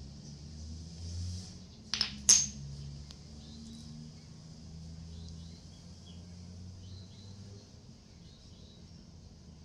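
Two sharp metallic clicks about a third of a second apart, the second louder with a short ring, from small metal nail-care tools, over a faint steady hiss.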